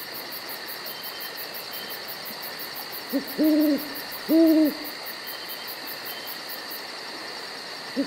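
Night-ambience sound effect: an owl hooting, one short note then two longer hoots about three seconds in, over a steady hiss with a fast, even, high-pitched pulsing.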